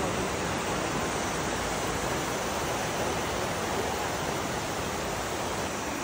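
Waterfall stream rushing and cascading over boulders: a steady, even rush of water.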